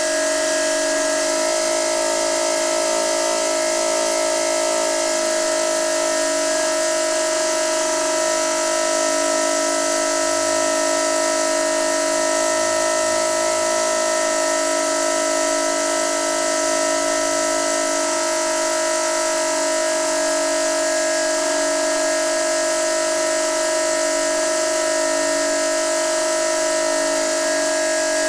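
Noisy water pipe humming: a steady tone at one middle pitch with several fainter higher tones, over an even hiss.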